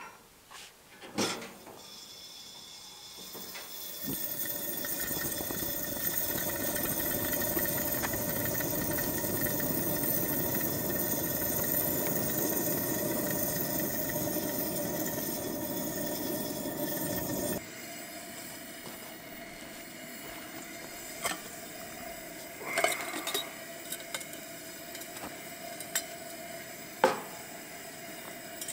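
A two-burner liquid-fuel camp stove burner, lit with a match, hissing steadily as it burns with tall yellow warm-up flames. The hiss cuts off suddenly about two-thirds of the way in, and a few sharp clinks of metal cookware follow.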